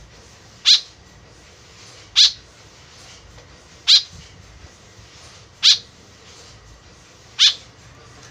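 White-breasted woodswallow calling: five short, sharp calls, evenly spaced about every second and a half to two seconds, played as a lure call.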